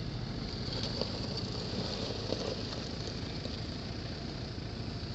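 Off-road SUV engine running, a steady low rumble heard from inside a car's cabin, with a few faint ticks.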